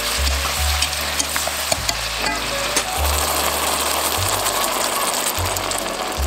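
Vegetables sautéing and sizzling in oil in a pan, stirred with metal tongs that give a few sharp clicks against the pan in the first half. About three seconds in, white wine is poured into the hot pan and the sizzle thickens.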